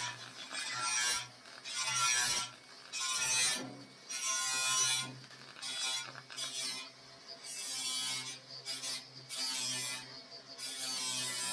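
Background music, with repeated stop-start bursts of harsh crackling noise from metalwork on the car body, each about half a second to a second long.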